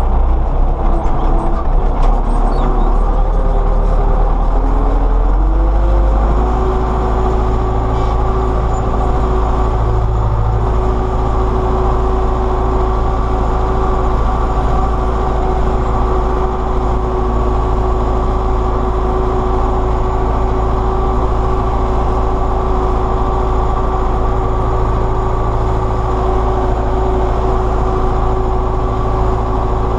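MTZ-82 tractor's four-cylinder diesel engine running steadily under load, pulling a disc harrow, heard from inside the cab. The engine note wavers for the first few seconds, then holds steady.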